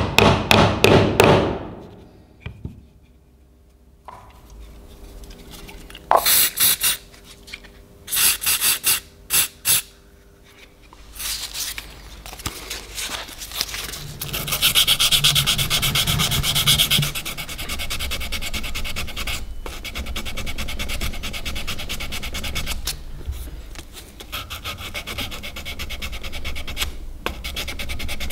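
A small hammer tapping rapidly on a metal pin to peen it over in a knife handle, stopping after about a second and a half. After a lull come a few short scraping strokes, then steady back-and-forth rubbing of hand-sanding the handle with a strip of P400 sandpaper.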